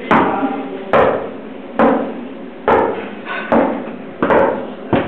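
Seven loud knocks or strikes in a steady rhythm, a little under a second apart, each ringing briefly after the hit.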